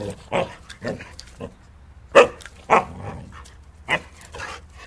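Husky giving a string of short, sharp barks, the loudest about two seconds in.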